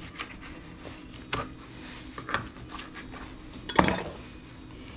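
Steel kitchen knives knocking and clinking on a plastic cutting board and against each other, a few sharp clicks with the loudest about four seconds in, over soft rubbing as raw chicken is handled and cut.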